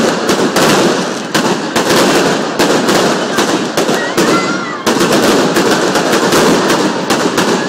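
Fireworks going off at close range: an irregular rapid string of sharp bangs, several a second, over a continuous crackling hiss of burning stars.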